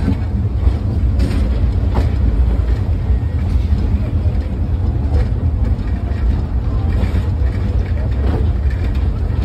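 Passenger train carriage rolling along the track, heard from on board: a steady low rumble with a few scattered clicks and knocks.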